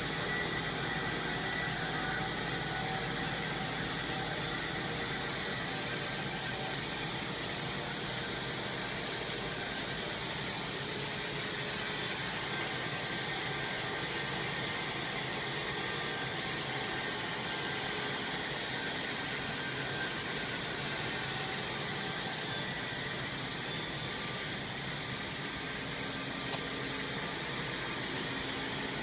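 Steady, even machinery din of a running plastic pipe extrusion line, a constant hiss-like noise with a few faint steady tones and no rhythm.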